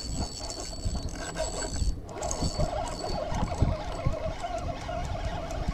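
Spinning reel being cranked to bring in a hooked fish, its gears giving a steady whir, with scattered low knocks from the rod and reel being handled.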